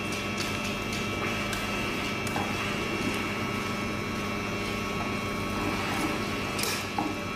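Steady mechanical hum of running equipment, with a few faint clicks and a short hiss about seven seconds in.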